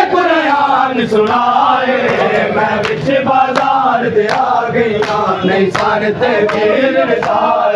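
Crowd of men chanting a noha, a Shia mourning lament, with sharp chest-beating slaps (matam) keeping a steady beat of about three strokes every two seconds.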